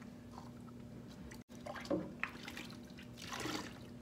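Faint dripping and splashing of bathwater in a stainless-steel kitchen sink as a hand rinses a small dog, with a short splash near the end.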